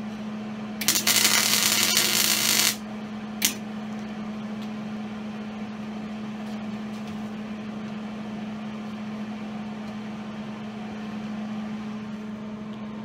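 MIG welding arc on rebar: a crackling burst of about two seconds, then a second short blip of arc a moment later. A steady low hum runs underneath.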